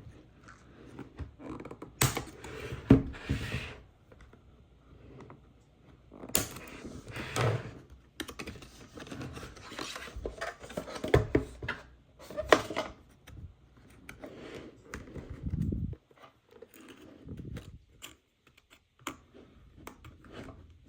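Toy packaging being handled and opened by hand: irregular rustling with scattered clicks and knocks.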